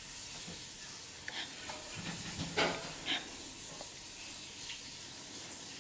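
A baby's faint mouthing and sucking on a chicken drumstick: a few small wet smacks and a short breathy sound about two and a half seconds in, over a steady low hiss.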